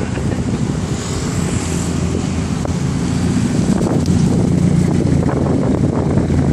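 A sports car's engine running as the car drives up and pulls to a stop, settling into a steady idle about four seconds in. Wind buffets the microphone.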